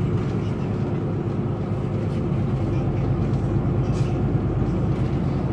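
Inside a Solaris Urbino 8,9LE city bus on the move: its engine running at a steady pace over continuous road and tyre noise, heard from the front of the cabin.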